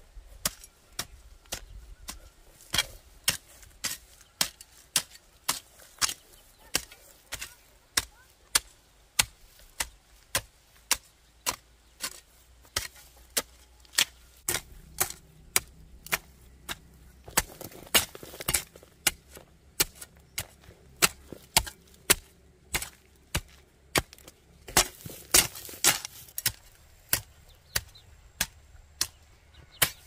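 Hand hoe chopping into dry soil and cut stalks, stroke after stroke at about one every two-thirds of a second, with a quicker run of blows near the end.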